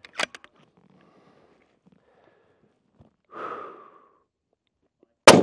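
A single 6.5 PRC rifle shot near the end, very loud and sharp, ringing out briefly. About three seconds in, the shooter breathes out audibly before the shot.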